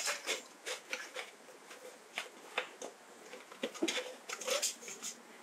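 Rubber O-ring being worked by hand into the groove inside a black plastic HomeBiogas 2.0 pipe fitting: irregular light clicks and rubbing of rubber on plastic, with a couple of short squeaks about four seconds in.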